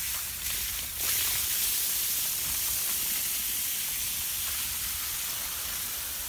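A steady high hiss comes in suddenly about a second in and holds, slowly easing off.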